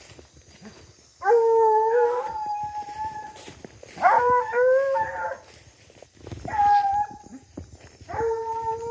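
Hunting dogs baying in long, drawn-out howls, four bouts of calling with short pauses between, as hounds do when working a scent trail.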